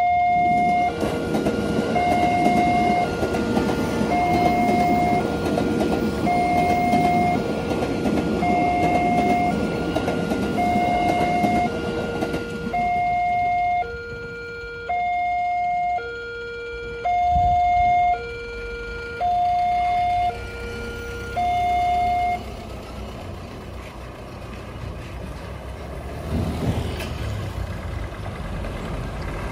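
Railway level-crossing warning siren: an electronic two-tone alarm alternating a higher and a lower tone, about a second each, that stops about two-thirds of the way in. A train rumbles over the crossing for roughly the first twelve seconds. Road traffic engines pick up near the end.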